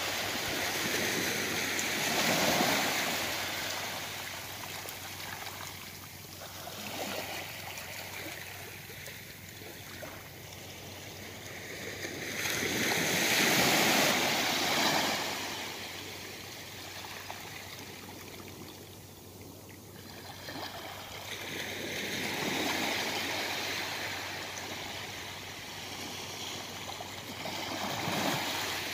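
Small, gentle waves washing onto the beach. The wash swells and fades in four slow surges, the loudest near the middle.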